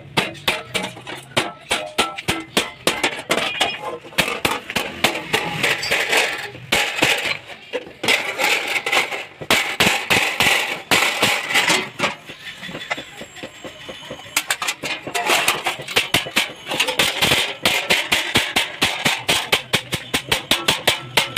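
Rapid, irregular metal tapping and clinking, several sharp strikes a second, with brief pauses about a third and two-thirds of the way through.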